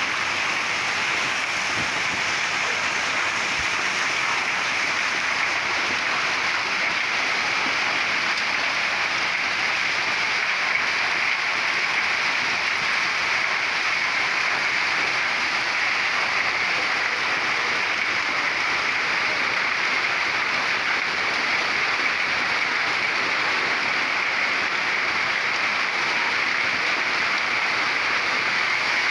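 Heavy rain mixed with hail coming down hard in a storm: a steady, even rush that does not let up.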